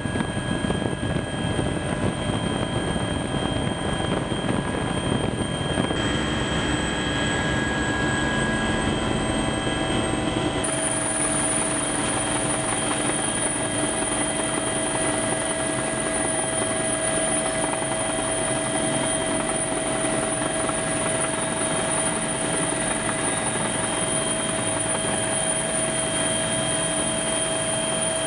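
Military helicopter's turbine engine and rotor heard from inside the cabin with the side door open: a continuous loud rush with a steady whine, whose tone shifts abruptly twice, about six and eleven seconds in.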